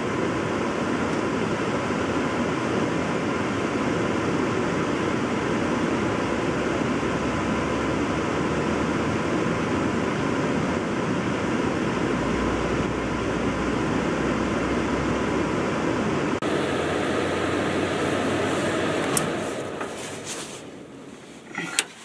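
Bryant gas furnace blower fan running steadily after the unit is powered up, the 90-second blower run flagged by error code 12. It fades out near the end.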